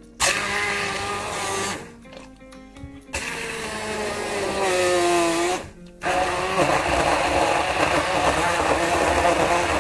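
Hand-held stick blender whirring as it chops grapes and fruit in water in a glass jar. It runs in three bursts: a short one at the start, a longer one from about three seconds in whose pitch sinks near its end, and then steadily from about six seconds on.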